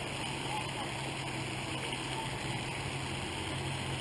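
Steady splashing wash of a pond's spray fountain, with a constant low hum beneath it.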